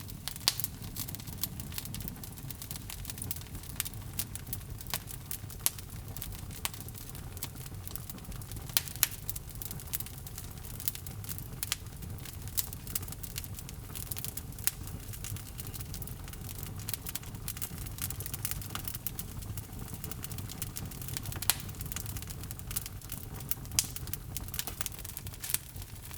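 Log fire burning in a fireplace: a steady low rumble of flame with frequent sharp crackles and pops, a few of them much louder.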